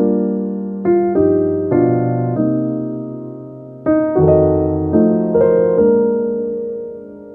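Slow piano music: chords and single notes struck every half second to a second and a half, each left to ring and fade.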